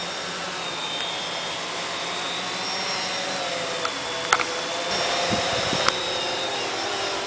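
CX-20 quadcopter hovering low, its electric motors and propellers giving a steady whine whose pitch wavers slightly as the motors adjust speed. Two sharp clicks a little past the middle.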